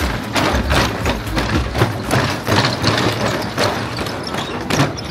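Footsteps knocking on the loose wooden planks of a swaying suspension footbridge, the boards clattering in a walking rhythm of about two to three knocks a second, over a steady low rumble.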